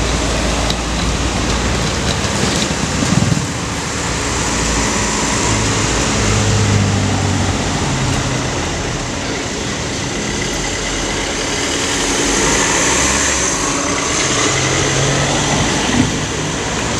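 City street traffic: cars and a motor scooter going by, their engines humming over a steady wash of road noise, with a brief knock about three seconds in and another near the end.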